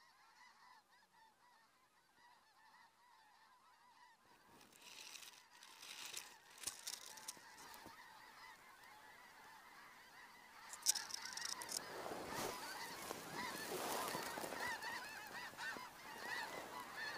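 A flock of geese flying overhead, many birds honking at once, faint at first and growing louder in the second half. A sharp knock about eleven seconds in.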